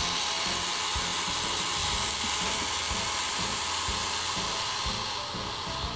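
Handheld hair dryer running steadily, its motor and fan giving a constant whirring hiss as it blows hot air onto a small circuit board.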